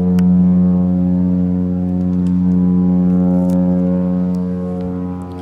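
The MSC Virtuosa cruise ship's horn sounding one long, steady, deep blast, a departure signal as she leaves her berth. It eases slightly near the end.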